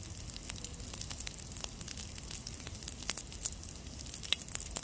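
Minced game-meat patty frying in fat in a steel pan over a small flame: a steady sizzle with many short crackles and pops.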